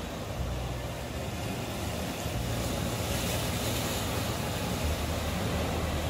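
Steady rush of wind and sea surf, with wind buffeting the microphone in uneven low rumbles.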